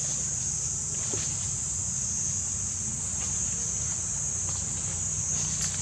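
A steady, high-pitched insect chorus with a low hum underneath and a few faint ticks.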